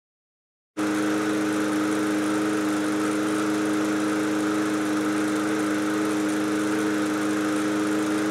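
Red walk-behind push mower's small four-stroke engine running steadily at an even pitch, coming in abruptly under a second in.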